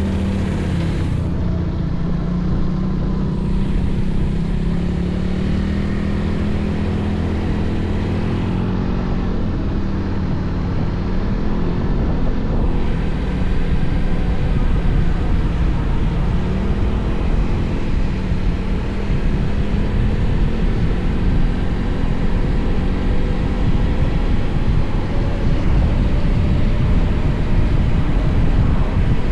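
Honda X-ADV's parallel-twin engine running at a steady cruise, its pitch easing down and back up a little a few times. Wind rumbling on the microphone grows louder from about halfway through.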